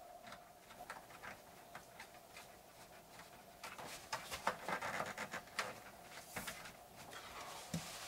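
Faint plastic clicks and rattles of a fan unit and its grille being handled and fitted into a roof-vent opening, busiest in the middle, with a couple of single clicks near the end.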